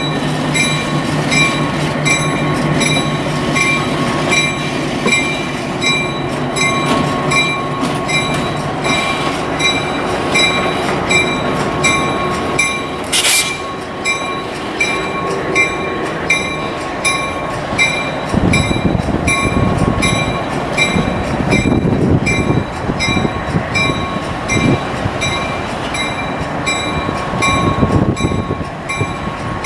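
Diesel switcher locomotives moving slowly with a bell ringing steadily about twice a second over the engines' running. A short hiss comes about halfway through, and a heavier low rumble sets in for the last third.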